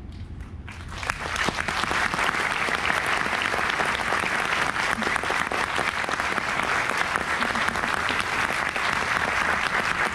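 Concert audience applauding, breaking out about a second in and then holding steady and dense.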